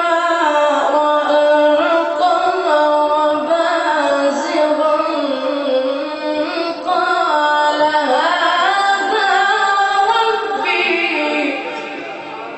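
A man's voice chanting a long, ornamented melodic religious recitation into a microphone, holding notes that slide up and down, fading away near the end.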